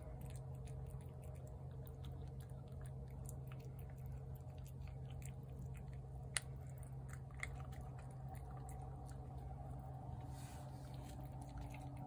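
A cat eating wet pâté cat food from a plate: soft, wet chewing with many small clicks and smacks, and one sharper click about six seconds in. A steady low hum runs underneath.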